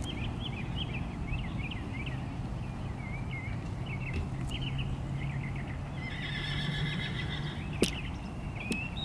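A horse whinnies once, a held call lasting about a second and a half from about six seconds in, over short high chirps that go on throughout. A single sharp click comes near the end and is the loudest sound.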